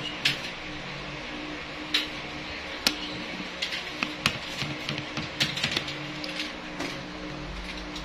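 Irregular sharp clicks and crackles of oyster mushroom clusters being twisted and snapped off plastic-wrapped straw growing bags, busiest in the middle, over a steady low hum.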